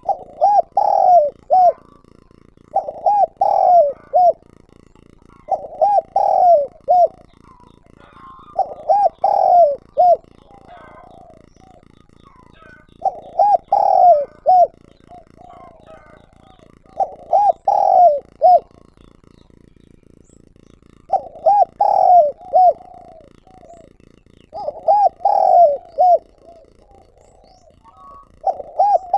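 Spotted dove (chim cu gáy) giving its calling song: a decoy male cooing a short phrase of several notes every three to four seconds, about nine phrases in all.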